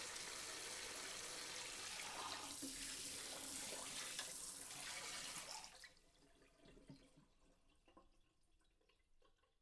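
Water spraying onto dishes in a sink, a steady hiss that cuts off about five and a half seconds in, followed by faint scattered drips.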